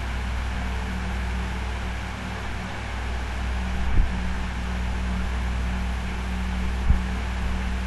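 Steady low hum and hiss of background recording noise, with two brief low thumps, about four and seven seconds in.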